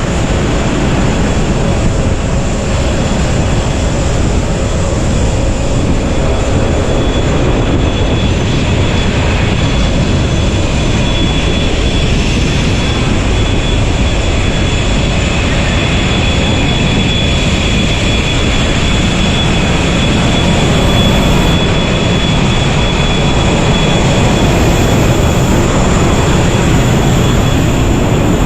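Airbus A380 cabin noise: a loud, steady rumble of engines and rushing air with a thin high whine over it, swelling slightly after about twenty seconds.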